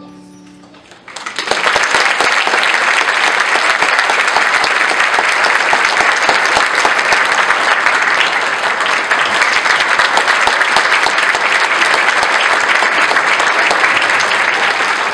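The last note of a children's song with piano dies away. About a second in, an audience breaks into steady clapping that begins to thin near the end.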